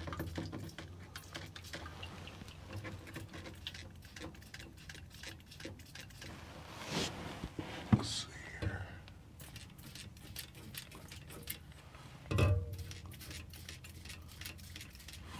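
Penetrating oil sprayed from a can around the spark plugs in a few short hisses, amid small clicks and handling noise, with a louder knock near the end.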